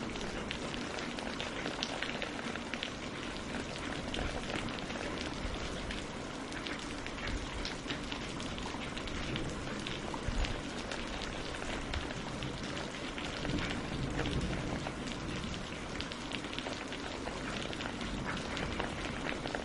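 Steady rain falling on leaves and on a lake's surface, a dense hiss sprinkled with many separate drop ticks.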